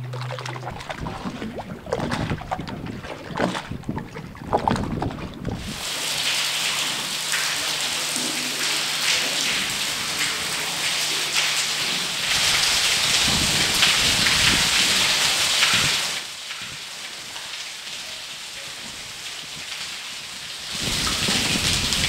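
Steady hiss of water, rising sharply about six seconds in, falling back for a few seconds near the two-thirds mark and coming back near the end. Before the hiss sets in there are irregular knocks and rustles.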